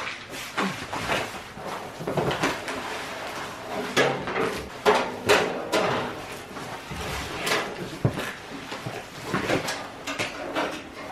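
Cardboard crinkling and scraping as a person gets down and shifts about on it, with irregular knocks and clanks of tools and metal parts being worked under the front of a truck.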